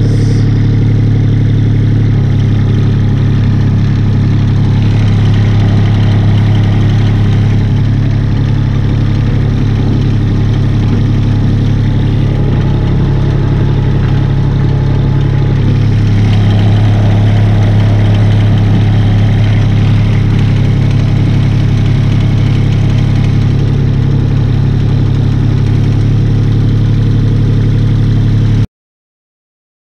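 Kubota three-cylinder diesel engine of a paver running steadily, its note shifting slightly about halfway through. The sound cuts off abruptly near the end.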